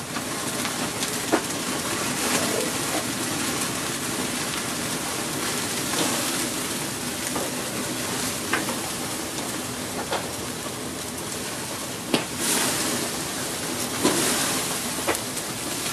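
Chicken burning on a barbecue grill in a grease flare-up: fat sizzling and hissing steadily in the flames, with occasional sharp pops and crackles.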